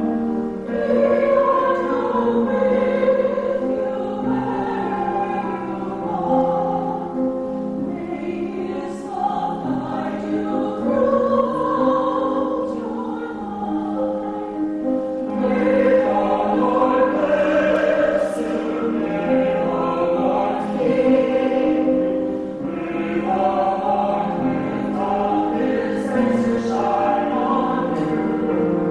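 Vocal quartet of mixed voices singing in harmony, held chords moving from one to the next as music closes the service.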